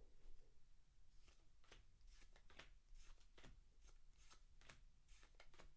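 Faint handling of a foil booster pack and the trading cards inside it: soft crinkles and many small irregular flicks and clicks as the cards are slid and handled.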